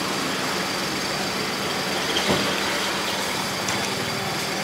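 Steady background hum of street traffic and engines, with one light click about two seconds in.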